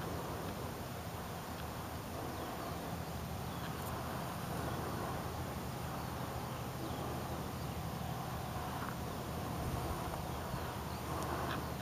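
Electric RC biplane flying at a distance, its brushless motor and propeller giving a steady hum. A few faint bird chirps are heard over it.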